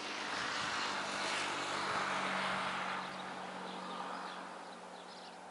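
Engine noise from a passing vehicle: a rushing sound swells for about two seconds and then fades, over a steady low hum. Birds chirp faintly near the end.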